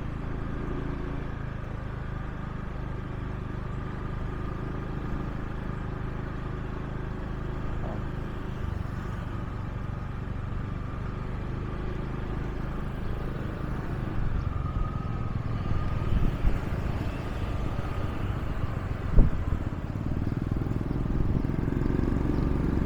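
Motorbike engine running steadily on the move, with road noise, and a single sharp knock late on.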